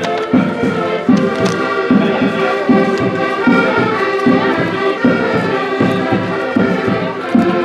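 Concertinas (diatonic button accordions) playing a folk tune, held chords over a regular bass beat.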